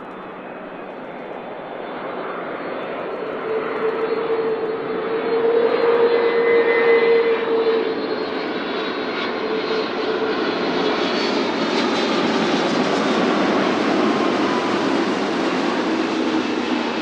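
Boeing 777-9 jet airliner's GE9X turbofan engines passing on landing approach: a rushing jet roar that grows louder, peaks with a steady whine about halfway, and stays loud and hissy to the end.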